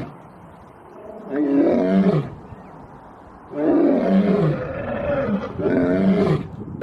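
Male lion roaring: three calls, each falling in pitch, the middle one the longest.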